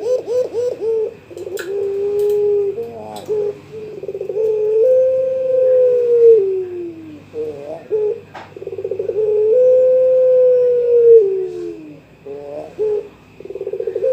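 A young puter pelung (domestic collared dove) cooing to call a rival: each phrase is a quick stuttering run of notes that leads into a long drawn-out coo, which drops in pitch at its end. The phrase comes about three times.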